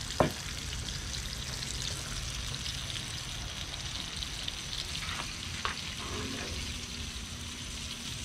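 Battered red snapper nuggets sizzling and crackling steadily in about three-quarters of an inch of vegetable oil in a cast-iron skillet, under a low steady hum. A sharp knock comes just at the start, and a few light clicks come in the second half.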